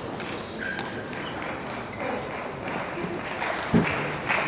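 Celluloid table tennis ball clicking off rubber paddles and the table during a fast doubles rally: a run of sharp, irregular clicks. A heavier thump comes a little before the end.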